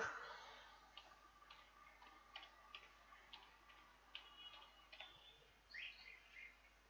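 Faint, irregular clicks of computer keyboard keys as a word is typed, with a faint short rising chirp about six seconds in.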